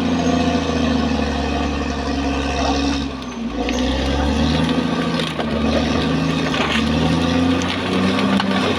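Caterpillar D6R XL bulldozer's diesel engine running steadily, easing off briefly about three seconds in and then picking up again at a slightly different pitch.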